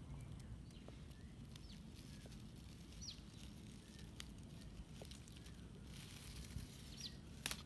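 Faint outdoor ambience: a few brief, high bird chirps, scattered small clicks and a spell of soft rustling in the grass, with one sharp click near the end.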